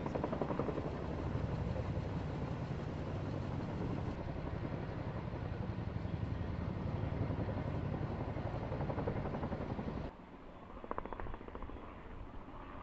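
A motor running steadily with a fast pulsing low rumble, cutting off sharply about ten seconds in; a quieter, thinner engine sound follows near the end.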